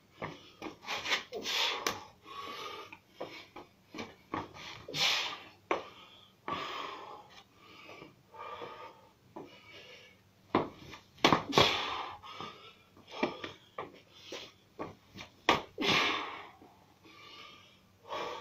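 A man's sharp, forceful breaths and exhalations in irregular bursts during kicking practice, with short scuffs and thuds from his feet and kicks.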